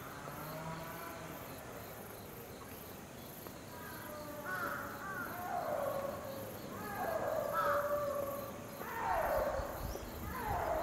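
A crow cawing several times from about four seconds in, each caw falling in pitch.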